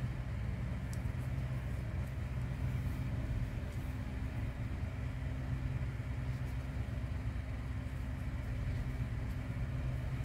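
A steady low hum that does not change, with a few faint light ticks over it.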